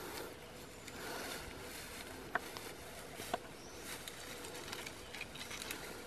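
Dry grass and twigs rustling and crackling underfoot and in the hands as dead branches are gathered from scrub, with two sharp clicks about a second apart midway.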